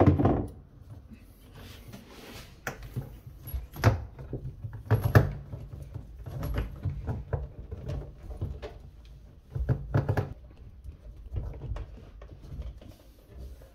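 Dishwasher drain hose being fitted onto a plastic sink trap: irregular knocks, clicks and rubbing of plastic hose and fittings. The loudest knocks come right at the start and about five seconds in.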